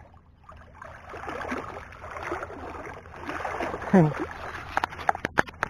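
Shallow sea water splashing and sloshing. About four seconds in there is a short falling grunt, and near the end a quick run of sharp clicks.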